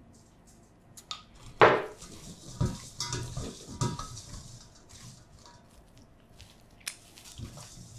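Stainless steel mixing bowl knocking and rattling as oiled potato pieces are stirred in it with a spatula. The loudest knock comes about a second and a half in, a cluster of knocks follows over the next couple of seconds, and there is one last sharp click near the end.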